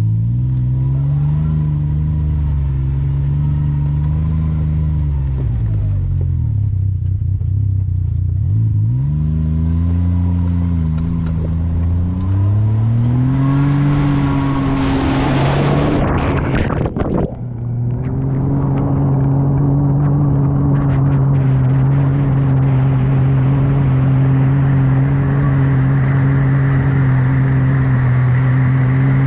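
Can-Am Maverick X3 side-by-side's turbocharged three-cylinder engine revving up and down as it pushes through deep water. About halfway through a loud rush of water briefly drowns it out, then the engine holds steady revs while water sprays off the front.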